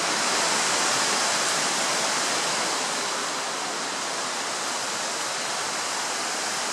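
Steady, even rushing noise, strongest in the high range, a little louder in the first second or two.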